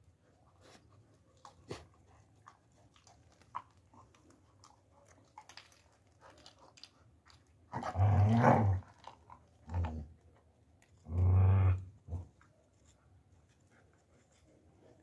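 German shepherd puppies growling in a few short bursts: a long one about eight seconds in, a brief one, then another long one about eleven seconds in. Faint scattered ticks and scuffs come before them.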